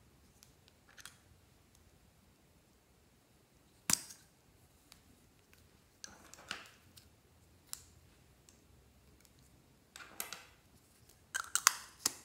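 Scattered sharp clicks and short scrapes from scissors snipping the tips off plastic-cased lipsticks and from handling the lipstick tubes and caps. There is a single sharp click about four seconds in and a quick run of louder clicks near the end.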